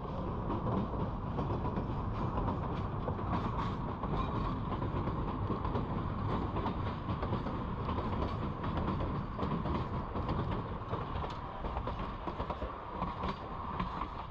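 Durango & Silverton narrow-gauge train rolling along the track: a steady rumble of wheels on rails with scattered clicks and clatter.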